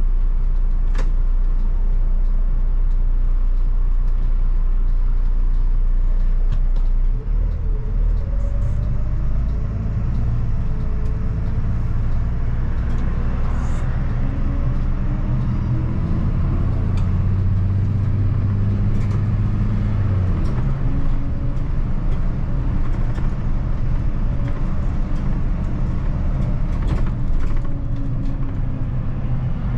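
2004 MAN 12.223 SLF city bus's 6.9-litre turbo diesel engine, heard from the driver's cab, pulling the bus away and accelerating. Its note climbs in several steps as the five-speed automatic gearbox shifts up through the middle, then settles into a steady run.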